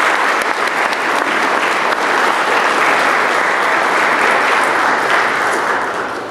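Audience applauding, a steady dense clapping that begins to die away near the end.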